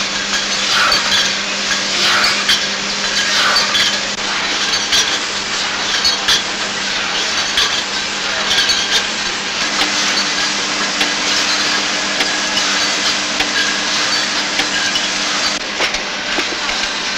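Bottle-filling and capping machinery on a spirits bottling line running, with a steady machine hum and irregular clattering and clinking of glass bottles. A second, higher hum joins a little over halfway through.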